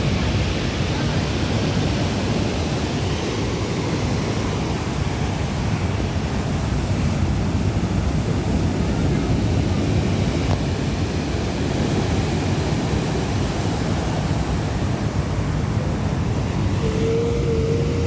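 Steady sea surf washing on the shore, mixed with wind rumbling on the microphone. A short single tone sounds briefly near the end.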